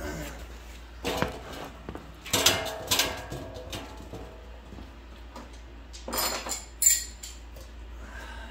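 Metal hand tools clattering and clinking in three separate bursts. The loudest comes about two and a half seconds in, with a short metallic ring.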